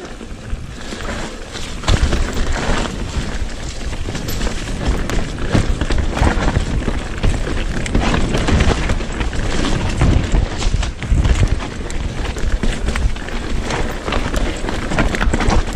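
Electric mountain bike descending a rough dirt singletrack: tyres rumbling over the ground, with a constant clatter of knocks and rattles from the bike. It gets louder about two seconds in.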